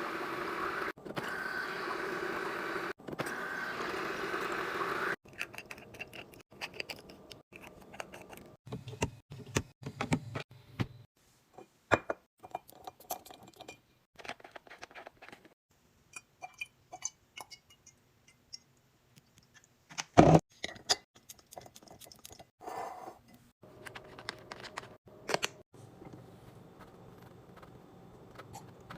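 Fridge restocking handling sounds: plastic and glass containers and packages clinking, clicking and rustling as they are set down and arranged, with one loud knock about twenty seconds in. The first five seconds hold a steady rushing noise.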